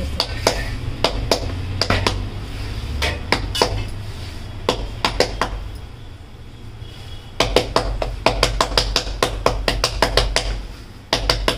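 Hands patting sorghum dough flat to shape jonna rotti: a run of quick, uneven slaps, sparser for a moment in the middle and then coming faster from about seven and a half seconds in.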